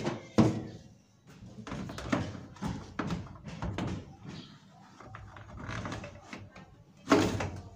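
Irregular knocks, taps and clatter from objects being handled, with a louder knock about seven seconds in.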